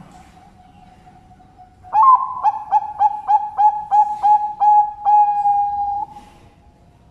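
Zebra dove (perkutut) singing: a run of about ten quick, evenly spaced coos that ends in one long drawn-out note, with other doves cooing faintly in the background.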